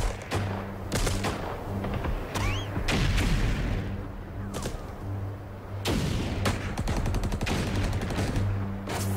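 Battle gunfire added to archival film: scattered sharp gunshots, single shots about a second apart and a short rapid burst late on, over a low pulsing hum, with a brief rising whistle a couple of seconds in.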